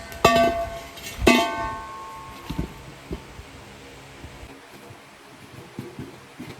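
Two hard metal strikes about a second apart, each leaving a ringing tone that dies away, then a few light knocks: metal being hammered during a tractor tyre change.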